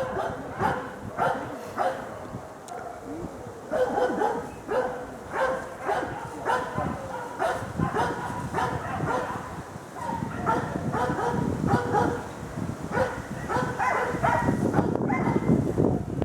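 Hunting dog barking repeatedly in quick runs while baying a wild boar.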